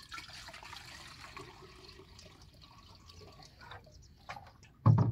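Water pouring steadily for nearly four seconds, then a few light clicks and one loud thump near the end.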